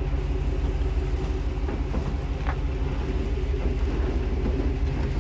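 A vehicle engine idling steadily with a low hum, with a few light knocks as large cardboard cabinet boxes are handled about two seconds in.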